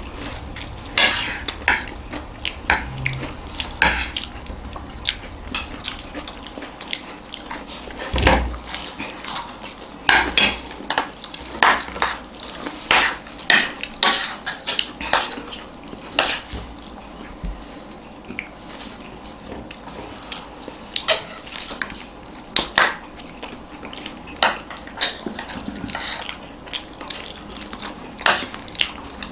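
Spoons clinking and scraping against plates as papadi chaat is eaten, in irregular sharp clinks that come several to a second at times.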